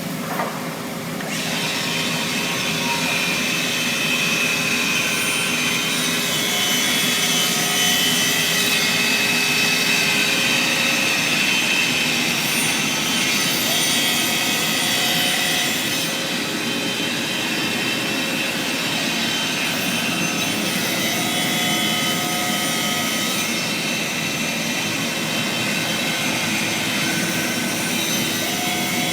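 CNC router spindle running at high speed while its cutter mills a sheet of plasterboard: a steady, high-pitched machining noise that starts up about a second in.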